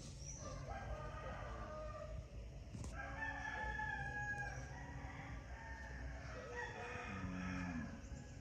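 Chickens calling, with a rooster crowing: several pitched calls, the longest held for over a second about three seconds in, over a steady low hum.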